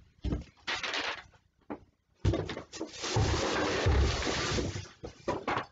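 Rustling and crinkling of a plastic carrier bag being rummaged through for a saucepan, with a few dull knocks. The rustling starts about two seconds in and lasts about three seconds.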